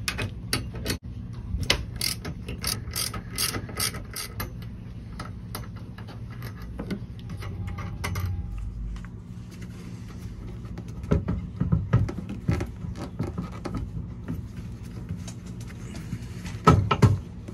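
13 mm ratchet wrench clicking in bursts as it works the mounting bolts of a steering track's traveler car, with light metal clinks from the hardware.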